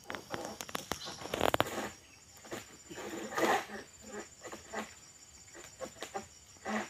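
Pole-mounted harvesting sickle cutting at an oil palm crown: a series of sharp cracks and knocks, loudest in a dense cluster about one and a half seconds in, with another burst around three and a half seconds.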